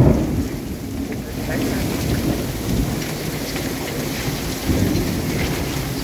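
Heavy rain pouring onto open water and running off a houseboat's roof in a thunderstorm. A loud rumble of thunder sounds at the start and fades over about a second.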